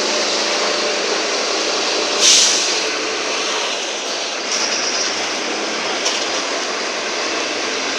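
Mercedes-Benz OF-1721 bus's diesel engine running steadily as the bus drives. A short loud hiss comes about two seconds in, with a fainter one and a click a few seconds later.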